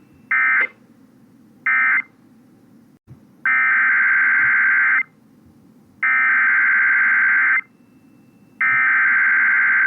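Emergency Alert System SAME data bursts, two-tone digital warbles. First come two short end-of-message bursts about a second apart. Then come three longer header bursts of about a second and a half each, a second apart, which open the next severe thunderstorm warning.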